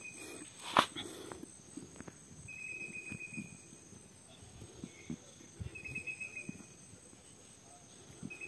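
An insect trilling in short buzzy bursts about a second long, repeating roughly every three seconds, over soft rustling. A sharp click comes a little under a second in.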